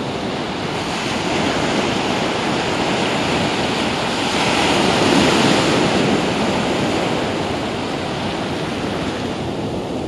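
Small ocean waves breaking and washing in over the shallows, a steady rush of foam that swells loudest about halfway through.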